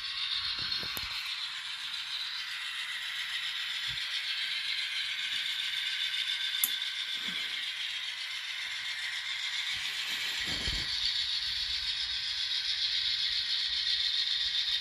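The sound decoder in an N scale GE Dash 9-44CW model locomotive plays a diesel engine sound through its tiny speaker, mixed with the model's rattle as it runs along the track. The engine sound is thin and steady and gets a little louder as the model pulls up a slight grade. A single sharp click comes about halfway through.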